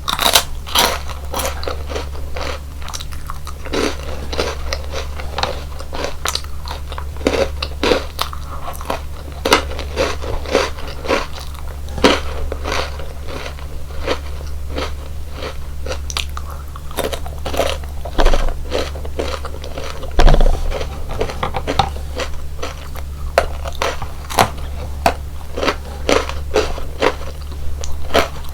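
Close-miked biting and chewing of crunchy chocolate biscuit snacks: a continuous run of crisp, irregular crunches with a steady low hum beneath.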